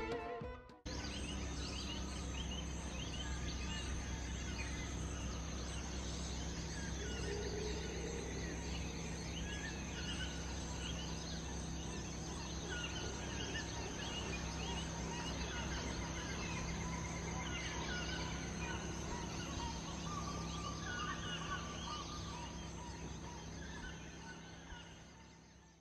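Tropical jungle dawn chorus: many birds chirping and calling over a steady high hum of insects, fading out near the end.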